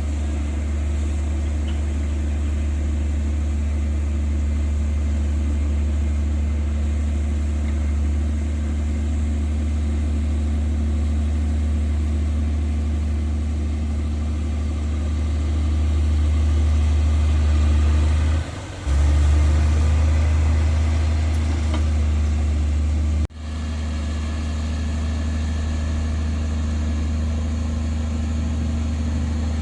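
Heavy diesel engine of earthmoving machinery running steadily with a deep, low rumble. The sound breaks off briefly past the middle and drops out sharply once more later on before carrying on.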